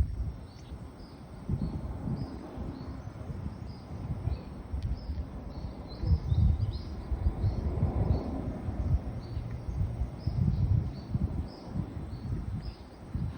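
Outdoor ambience: a steady series of short, high chirps, about two a second, over uneven low rumbling and thumps.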